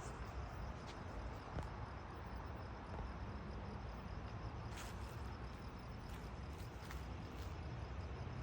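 Outdoor night ambience: a faint, evenly pulsing high trill of insects over a low steady rumble, with a couple of light clicks.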